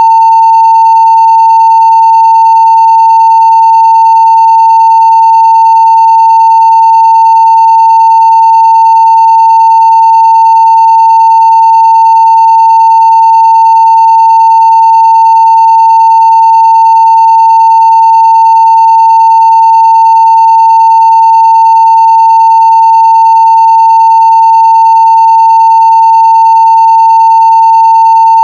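Continuous 900 Hz sine-wave test tone at full scale (0 dB): one steady, unchanging pitch.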